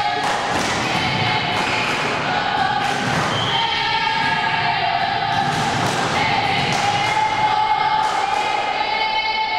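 A volleyball being hit and landing during a rally, several hollow thumps echoing in a sports hall, over music with long held notes.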